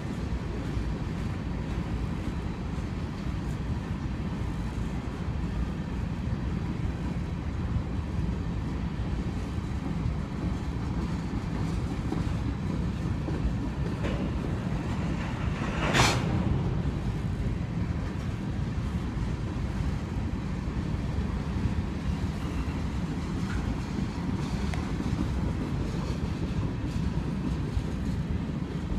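Union Pacific freight train rolling past with a steady low rumble of wheels on rail, with one sharp clank about halfway through.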